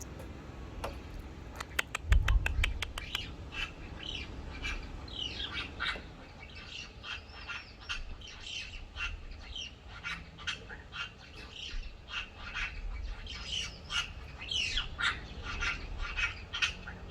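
A magpie giving an unusual call, which opens with a quick run of clicks and goes into a long string of short, squeaky notes.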